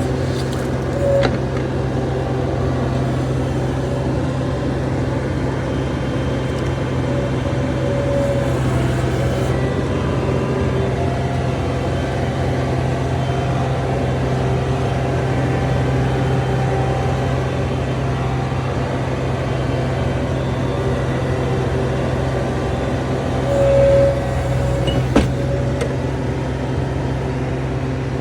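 John Deere 250 skid steer's diesel engine running steadily, with a few short squeals a second or so long and one sharp click near the end.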